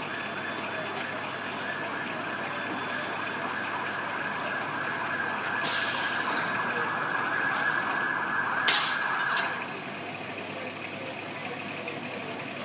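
Fire trucks running steadily, with a steady high whine through the middle and two short, sharp hissing bursts about six and nine seconds in.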